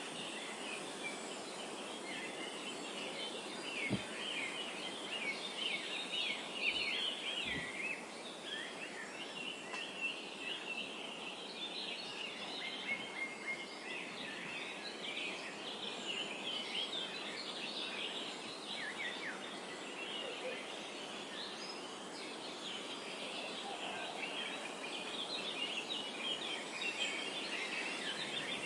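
A chorus of many small birds chirping and twittering at once, dense and unbroken, over a steady background hiss. There are a few low thumps about four and seven seconds in.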